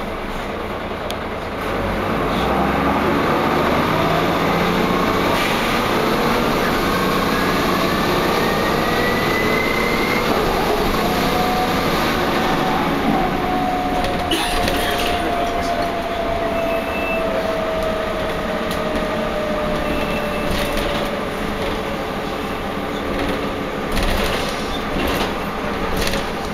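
Wright Cadet single-decker bus heard from inside while under way, its running noise growing louder about two seconds in. A whine climbs in pitch over several seconds, then a lower whine falls slowly for about ten seconds, with a few knocks and rattles near the end. These are the strange noises the uploader takes as a sign that the bus is in poor condition.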